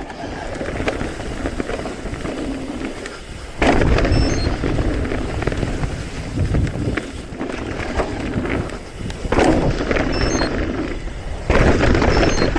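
Mountain bike riding down a rough jump trail: tyres rumbling and crackling over dirt and the bike rattling, with three louder, rougher surges.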